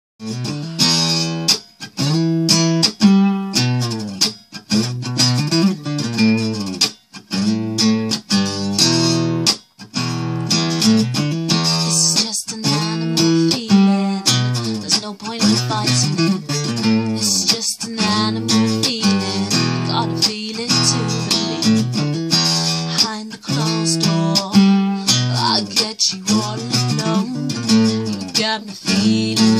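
Acoustic guitar playing the instrumental opening of a song, a run of changing chords, with two brief breaks about seven and ten seconds in.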